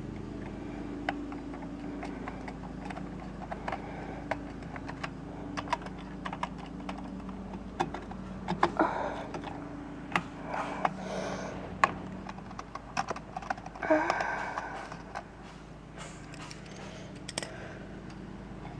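Irregular light clicks and taps of small-parts work: a screwdriver loosening the terminal screws on a plastic garage door safety sensor and the wires being handled.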